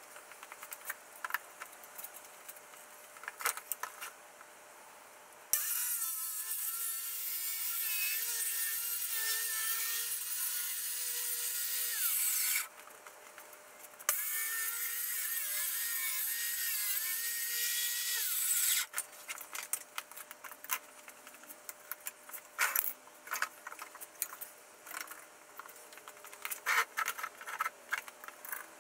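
Handheld electric circular saw cutting a thin sheet of board in two runs, about seven and then five seconds long, with a short pause between; a steady motor whine rides under the cutting noise. Light clicks and knocks of handling come before and after the cuts.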